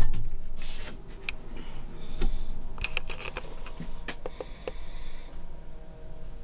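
Handling and movement noise from a handheld camera being carried through a small boat cabin: a loud knock at the start, then scattered light clicks and knocks.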